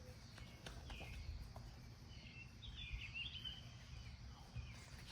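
Faint outdoor ambience, a steady low background rumble, with a few faint, short bird chirps.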